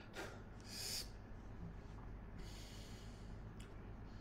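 A man sniffs briefly through his nose about a second in, then breathes out softly a couple of seconds later, over a low steady hum.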